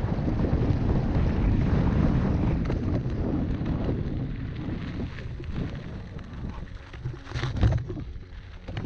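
Wind buffeting the action-camera microphone over the rumble and rattle of a mountain bike rolling downhill on a rough dirt trail. The rumble eases after about four seconds, and a sharp jolt from a bump comes near the end.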